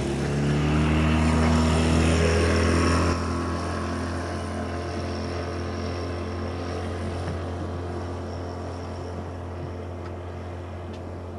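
Outboard motor of a small open boat running steadily as the boat pulls away across the lake. Its sound drops a step about three seconds in and then grows steadily fainter.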